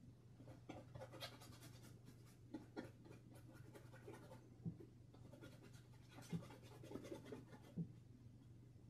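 Faint scratching of a paintbrush stroking acrylic paint onto canvas, in two spells, with a few soft knocks in between.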